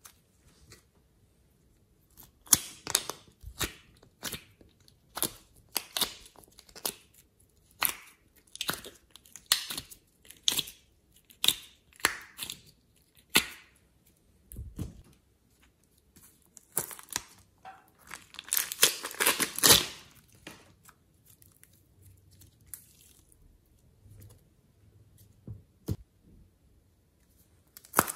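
Hands pressing and pulling soft clay and slime in a glass tray, making a series of short, irregular noises. They are thickest about two-thirds of the way through, then a quieter stretch follows.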